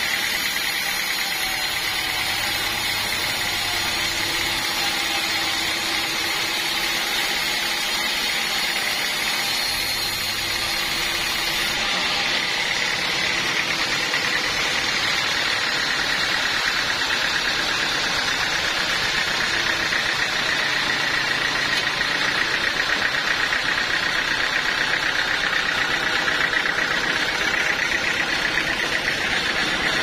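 Band sawmill running, its blade sawing through a squared teak log with a steady mechanical whine.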